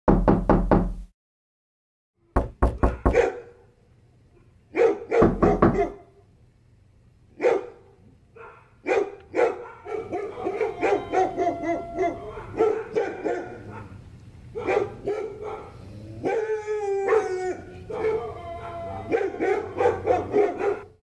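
Dog barking in short volleys of several quick barks, three volleys in the first six seconds, then a denser run of overlapping barks from about nine seconds in. There is one longer, falling cry about sixteen seconds in.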